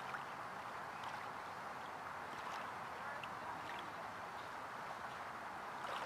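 Small waves lapping gently at a lake shore: a steady soft wash of water with a few faint tiny splashes.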